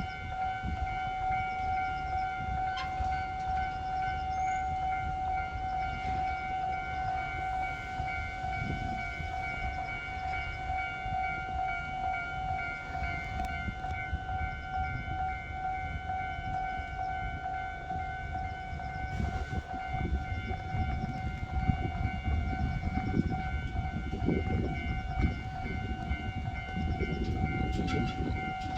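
Railway level-crossing warning alarm sounding continuously as one steady electronic tone, over the low rumble of a train that grows heavier and more uneven in the second half.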